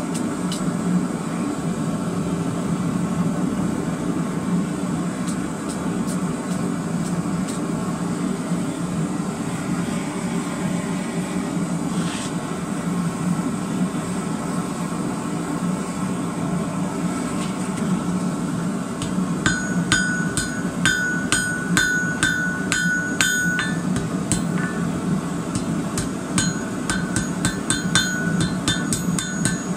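Hand hammer striking red-hot twisted rebar on a steel anvil, the anvil ringing with each blow. The blows come in two quick runs in the second half, over a steady low hum, with only a few scattered knocks before them.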